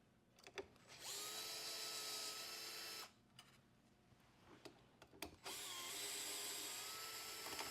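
Small electric screwdriver with a 2.5 mm hex bit backing out strain-relief screws: the motor whines up to speed and runs steadily for about two seconds, twice, with small clicks between the runs.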